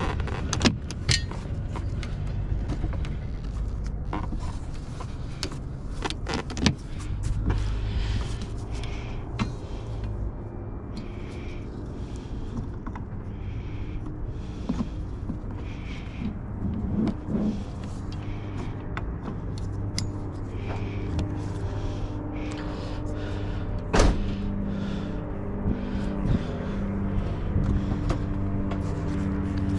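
Glass cleaner being wiped over a freshly installed windshield in repeated strokes, about one a second, with a few sharp clicks and a louder knock past the middle. Underneath is the steady low hum of a running vehicle engine.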